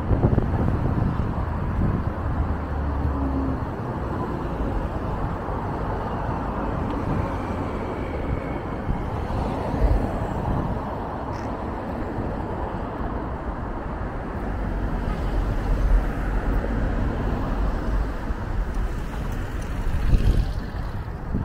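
Steady road traffic: cars driving past close by, with engine and tyre noise.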